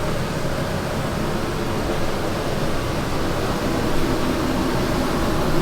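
Steady, even rush of air-conditioning and machinery noise around a parked airliner during boarding, with no distinct events.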